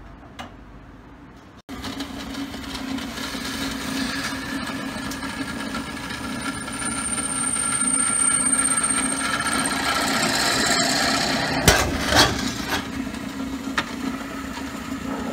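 Drill press running as its bit drills into a thin brass crash cymbal. There is a steady motor hum and a high thin squeal from the cutting for a few seconds midway, then two sharp knocks a little before the end.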